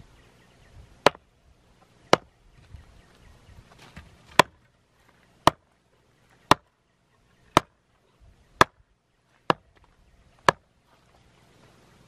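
A wooden mallet striking the top of a wooden stake, driving it into the ground: nine sharp knocks, about one a second, with a slightly longer gap after the second.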